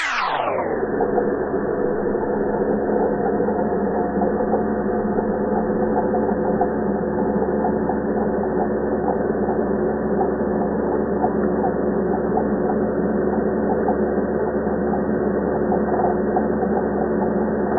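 Electric angle grinder running, its high whine slowed about eightfold along with the 240 fps footage. It drops steeply in pitch at the very start, then holds as a deep steady drone of several low tones with faint rapid ticking.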